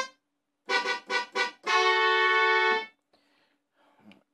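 Roland U-110 PCM sound module playing its brass preset through a small guitar amplifier: three short stabbed notes, then a longer note held for about a second that cuts off sharply.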